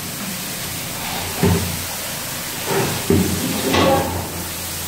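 A few dull knocks and bumps inside a steel machine, over a steady hiss.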